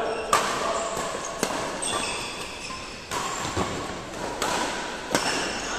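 Badminton rackets striking the shuttlecock back and forth in a doubles rally: a series of sharp smacks, about one a second.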